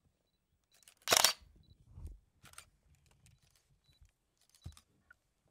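Camera shutter clicks: one loud shutter release about a second in, then a few fainter clicks and a sharp click near the end.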